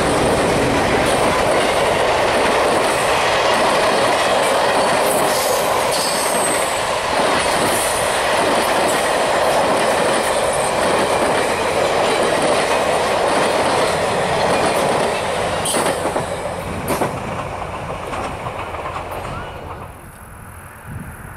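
Passenger cars of a Canadian Pacific business train rolling past on the rails: a steady rush of wheel-on-rail noise with clickety-clack over the rail joints. It fades away over the last several seconds, with a few last clicks, as the end of the train goes by.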